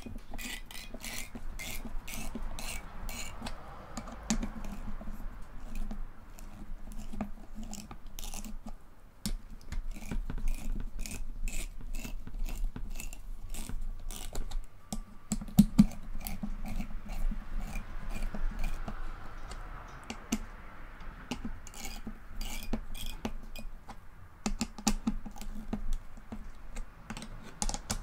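A hand screwdriver driving screws into a metal graphics-card heatsink, with runs of quick light clicks and metal handling noise.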